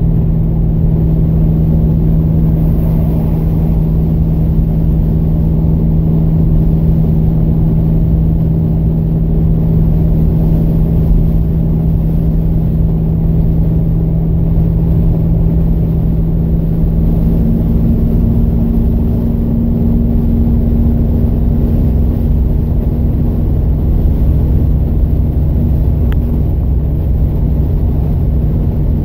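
Plymouth Scamp cruising at highway speed, heard from inside the cabin: a steady low drone of engine and road noise. Its main hum moves up a little in pitch a bit past halfway.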